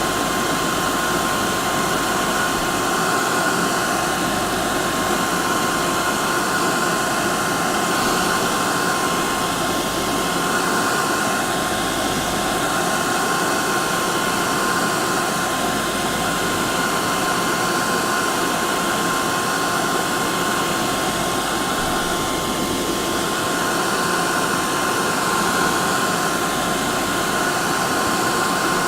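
Hair dryer running continuously at one steady setting: an even rush of blown air with a steady motor whine.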